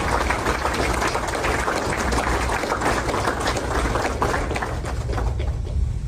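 Crowd applauding, a dense patter of clapping that thins out near the end, over a steady low rumble.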